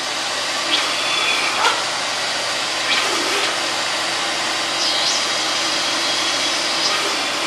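Vacuum cleaner running with its hose held at the mouth of an open jar: a steady rush of air, with several short whistling tones that slide up and down in pitch as the hose is moved.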